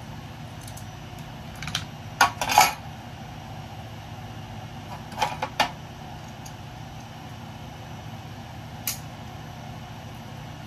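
Small pieces of scrap metal clinking and clattering as they are handled and dropped, in a few short groups of knocks spread over several seconds, over a steady low hum.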